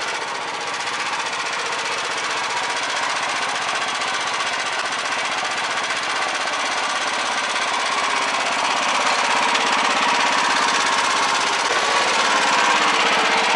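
Single-cylinder diesel engine of a walk-behind tractor running with a steady rapid knock, getting a little louder in the second half.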